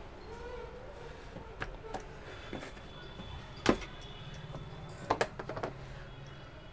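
Quiet handling sounds of a large taro (arbi) leaf being laid and smoothed flat by hand on a plastic chopping board, with a few light taps and clicks: a sharper one a little before four seconds in and a quick cluster of clicks just after five seconds.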